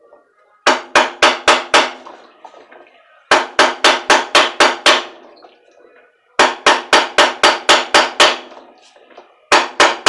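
Hammer striking the rusted centre nut of an Easy/Mabe washing machine's spin tub in quick runs of six to nine ringing metallic taps, about five a second, with short pauses between runs and a new run starting near the end. These are light, repeated blows on the nut's flats, meant to vibrate and crack the rust so that the seized nut will turn.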